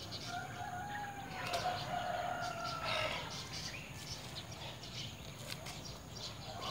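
A rooster crowing once, a long drawn-out call of about two and a half seconds near the start.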